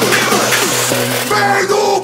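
Electronic dance music soundtrack with a steady beat, switching about halfway through to held, bending synth tones.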